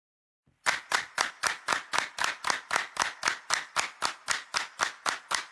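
Steady rhythmic hand claps, about four a second, keeping the beat at the opening of a song; they start about half a second in, after a short silence.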